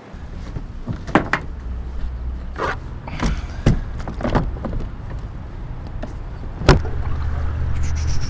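Scattered knocks and clunks of fishing gear being handled against the plastic deck of a Hobie fishing kayak, about seven separate hits, the sharpest near the end, over a steady low rumble.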